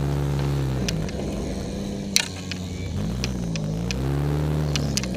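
Demolition derby car's engine revving up and dropping back twice, heard from inside the car, with scattered sharp clanks and rattles, one louder knock about two seconds in.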